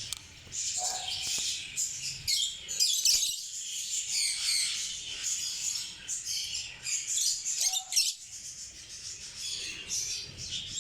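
Lovebirds chattering: a continuous run of rapid, high-pitched chirps and squeaks.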